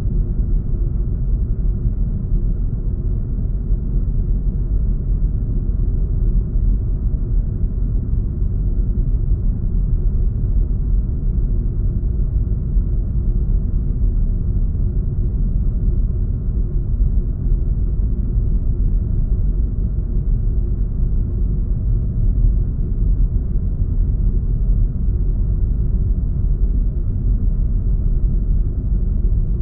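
Designed spaceship ambience: a deep, steady rumble built from layered recordings, with a faint low hum inside it and nothing high-pitched.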